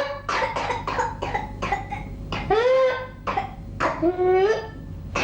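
A pertussis (whooping cough) coughing fit: runs of short, rapid coughs, each run broken by a high whoop that rises in pitch as breath is drawn in, about twice. It is the paroxysmal cough with inspiratory whoop that is the typical sign of whooping cough.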